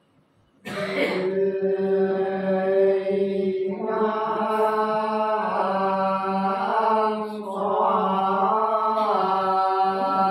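Unaccompanied Sán Dìu soọng cô folk singing: a slow, chant-like vocal line on long held notes, beginning about half a second in after a brief pause.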